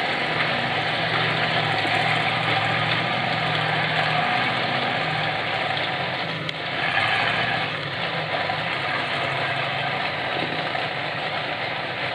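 Engines of several off-road race vehicles idling and running steadily on a rock trail, with a brief swell about seven seconds in.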